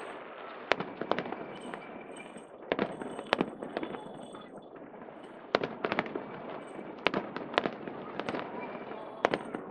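Aerial fireworks bursting: a string of sharp bangs and crackles, often in quick clusters, over a steady murmur of a crowd.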